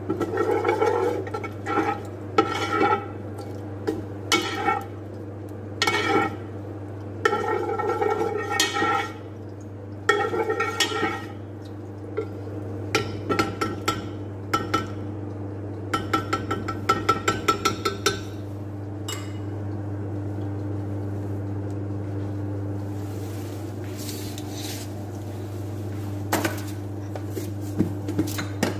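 Metal ladle scraping and clinking against a stone-coated pot while melting ghee is stirred, in repeated bursts through the first two-thirds, then only a few clinks. A steady low hum runs underneath.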